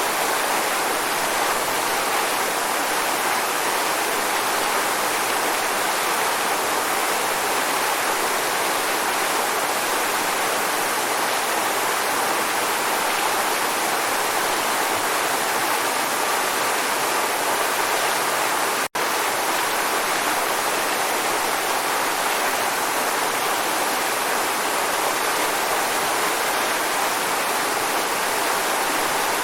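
Waterfall: a steady, dense rush of falling water. There is a split-second gap in the sound about two-thirds of the way through.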